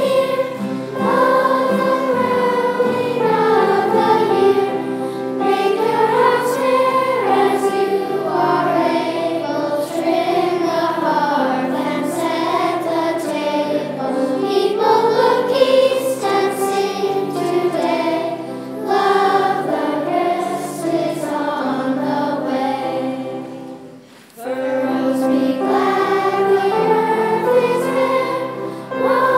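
A choir of children and adults singing together, with a short break about three-quarters of the way through before the singing picks up again.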